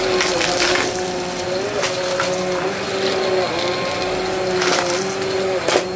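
Vacmaster upright vacuum cleaner running over carpet, its motor a steady whine that dips slightly in pitch now and then. Short crunches and crackles come through as bits of a dry debris mix are sucked up, the sharpest just before the end.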